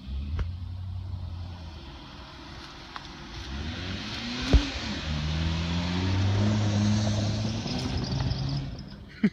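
Jeep Cherokee engine pulling through soft sand as the SUV drives past, its pitch rising twice as it is revved, with a hiss that swells as it passes. A single sharp knock sounds about four and a half seconds in.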